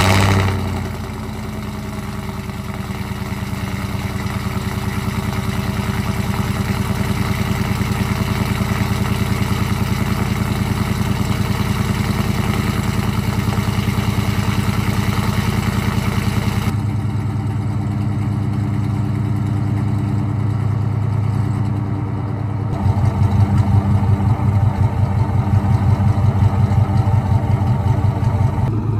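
2014 GMC Sierra's 5.3 V8 with long-tube headers, no catalytic converters and a Borla ATAK exhaust, starting with a loud flare and settling into a steady, deep, pulsing idle. About 23 s in it gets louder and more strongly pulsing.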